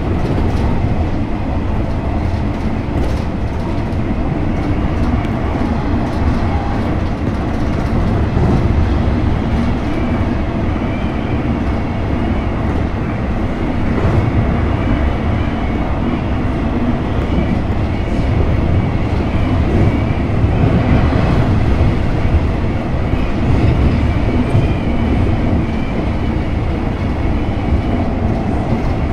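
JR West 103 series electric train running at speed, heard from the front cab. Its wheels make a steady rumble on the rails, with a faint high whine and a few light clicks over rail joints.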